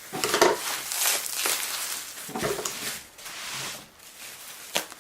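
Packaging being cut open by hand: irregular rustling and scraping with a few sharp clicks, the loudest about half a second in and another near the end.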